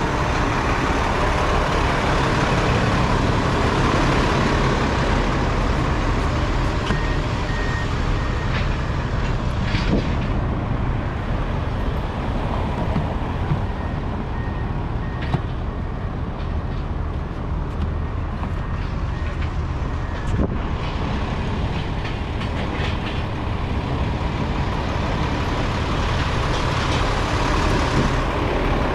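Steady rumble of idling diesel trucks at the roadside, with a few short knocks as plastic traffic cones are picked up.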